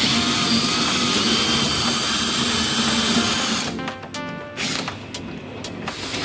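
Power drill running under load, boring a hole with a steady high whine, then stopping abruptly a little under four seconds in. Background music plays.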